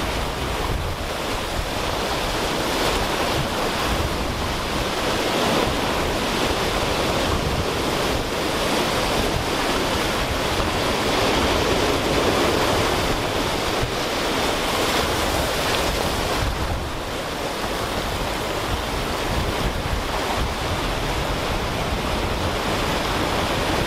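Ocean surf breaking and washing over a rocky lava shoreline, a steady rushing that swells a little about halfway through, with wind buffeting the microphone.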